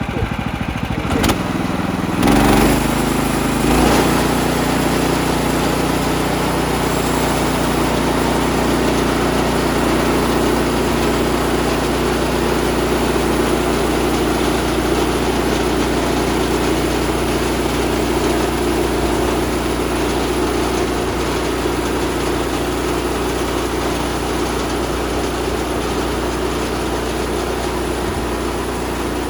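Gas engine of a portable band sawmill speeding up about two seconds in, then running steadily under load as the blade cuts through a cedar log.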